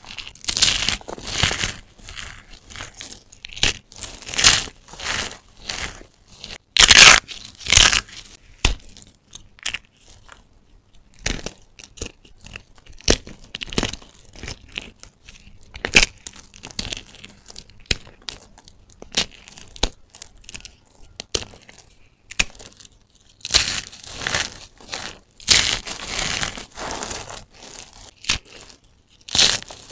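Hands squeezing and crumbling piles of shaved soap: irregular crisp crunching and crinkling, with the loudest crunches about seven seconds in.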